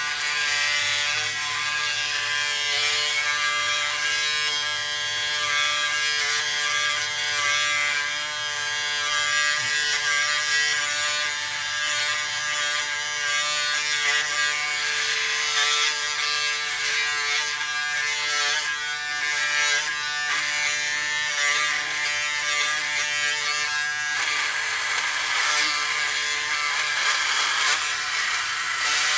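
A Braun Series 7 360 Flex electric shaver running with a steady hum, its head rasping as it cuts tough dry stubble. The tone shifts near the end as the head moves from the cheek to the chin.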